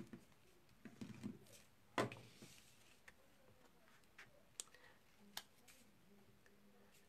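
Quiet hand-crafting sounds: faint rustles and small clicks of cardstock being handled as a glued embossed layer is laid onto a card base and pressed down, with one sharper knock about two seconds in.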